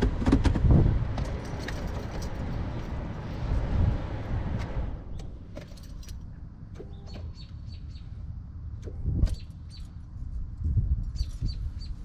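Ignition key held to start on a 2005 Scion tC that won't crank: a steady electrical hum for about five seconds with no cranking, which the owner takes for the starter trying to turn, a sign of a stuck starter. Then the hum stops and the keys rattle with a few light clicks.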